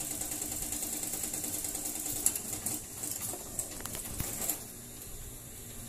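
Small homemade spinning top whirring on a tile floor with a steady hum, which stops about four and a half seconds in.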